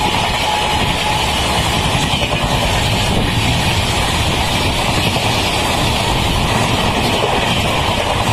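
LHB coaches of a Duranto Express rushing past at high speed: a loud, steady rush of wheels on rail and displaced air. The tail of the locomotive's horn dies away about a second in.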